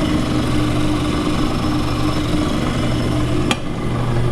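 Ammco 7000 disc brake lathe's electric motor running with a steady hum, which the owner judges sounds okay. A single sharp click comes about three and a half seconds in.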